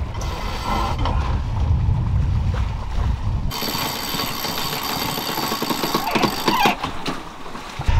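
Wind buffeting the microphone while under sail, then, about three and a half seconds in, a cockpit sheet winch cranked by hand with a winch handle to bring in the sail during a tack. It makes a steady whir with rapid ratchet clicking.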